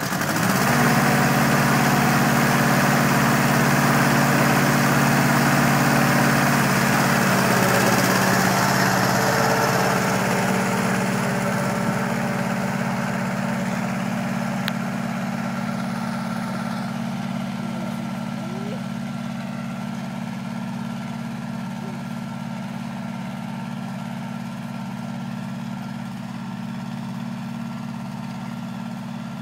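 Compact farm tractor engine picking up about a second in and running steadily under load as it pulls a disc harrow, the sound fading slowly as the tractor moves away.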